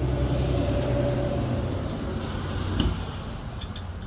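A motor vehicle engine running with a steady low hum that fades away about two seconds in, then a single sharp knock near three seconds in.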